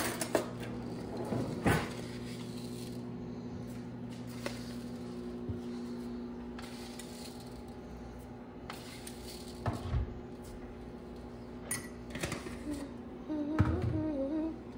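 Cutlery rattling in a kitchen drawer as a spoon is taken out, then scattered light clinks of a metal spoon against a jar and ceramic mugs as instant coffee is spooned out, over a steady low appliance hum.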